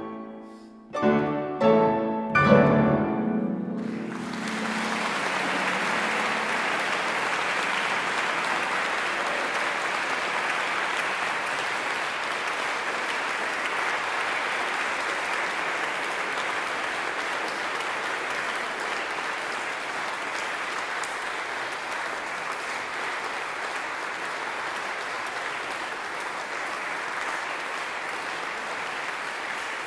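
Concert harp and piano playing the last plucked chords of a piece, the final chord ringing out; about four seconds in, the audience breaks into steady applause that continues, slowly easing off.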